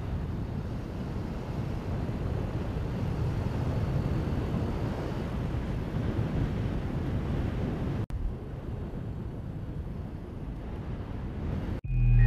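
Steady rush of wind and road noise from a moving motorcycle, heard on the rider's camera, with no engine note standing out. It drops to a quieter rush about 8 seconds in, and music starts just before the end.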